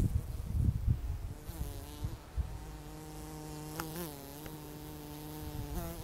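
A bee flying close by: a steady buzzing hum that starts about a second and a half in, wavers briefly in pitch midway, and stops just before the end. Low rumbling comes before it in the first second or so.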